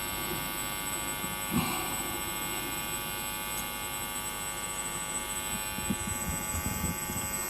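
A steady buzzing hum made of many even tones, with no change in level through the pause.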